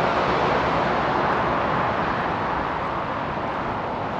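Suzuki GSX-S1000 on the move: a steady rush of wind and road noise, with the engine's low hum faint underneath, easing a little toward the end.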